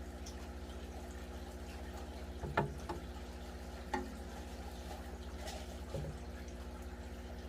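A steady low hum with a few short drips or taps of water, about two and a half, four and six seconds in.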